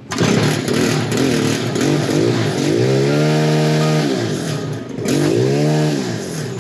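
Stihl FS91 string trimmer's small 4-MIX engine running after repair, revved up and down with two stretches held at high revs before dropping back near the end: a test run after the clutch and carburetor work.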